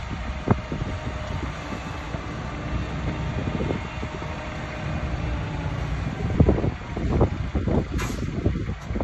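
Bulldozer's diesel engine running under load, with scattered metallic clanks from its tracks that come thicker in the last few seconds.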